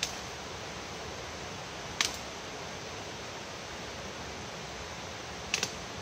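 Sharp snaps of vegetation being broken in forest undergrowth: one at the start, one about two seconds in, and a quick double snap near the end, over a steady rushing hiss.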